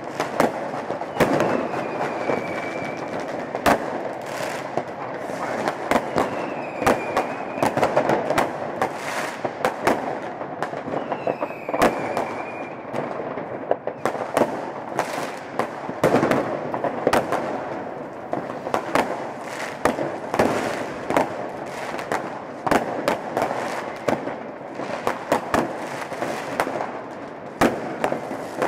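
A dense barrage of New Year's fireworks and firecrackers, with many bangs near and far overlapping without a break. A high whistle sounds three times in the first half.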